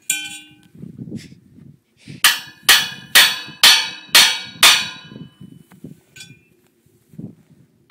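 Hammer blows on the steel of a lattice mast section, metal on metal: one ringing strike at the start, then a run of six hard blows about two a second, each ringing briefly.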